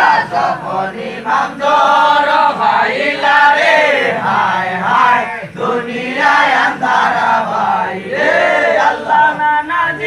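A large seated group of men chanting together in loud unison, a devotional chant in phrases that rise and fall every second or two.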